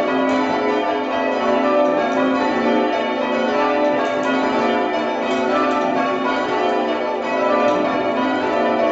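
Six church tower bells of a light, fast 8 cwt ring being rung down together, heard from the ringing chamber below: strike after strike in quick succession, the tones overlapping into a continuous clangour with no break.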